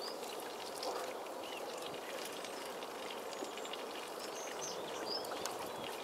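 Flock of Eurasian teal with a few short, high whistled calls scattered through, over a steady outdoor hiss.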